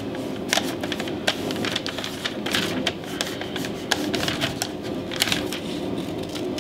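A sheet of paper crinkling and crackling in irregular clicks as fingers press and crease it against a metal housing to trace its shape. Near the end, scissors start cutting the paper.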